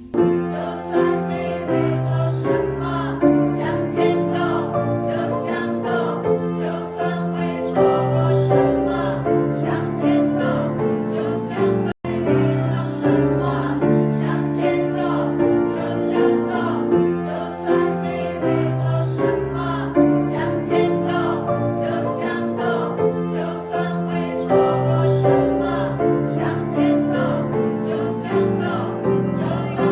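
Music with a group of voices singing in chorus over a steady beat; the sound drops out for an instant about twelve seconds in.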